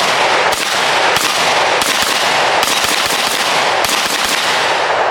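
Rapid gunfire: shots fired in quick succession, their reports and echoes running together into a continuous loud din.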